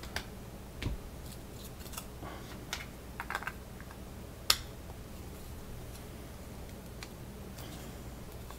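Scattered small clicks and taps of a steel ball bearing being pressed by hand into a plastic bearing block, with one sharper click about four and a half seconds in.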